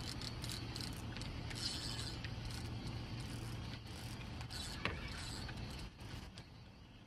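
Spinning fishing reel being cranked to bring in a hooked fish: a run of small mechanical clicks and ticks from the reel, over a steady low hum.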